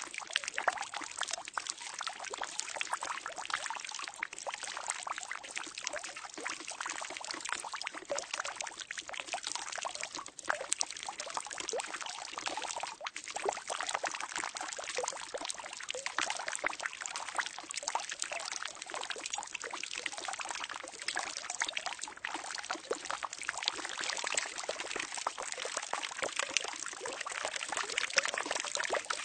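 Water pouring steadily into a barrel, a continuous splashing stream with many fine splattering drops.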